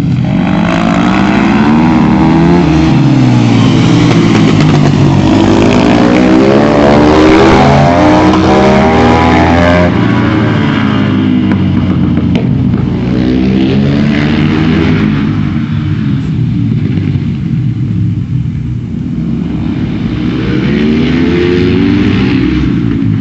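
Supermoto motorcycle engine revving up and down again and again as it accelerates, shifts and brakes around the track. It is loudest a few seconds in, drops for a while past the middle, then climbs again near the end.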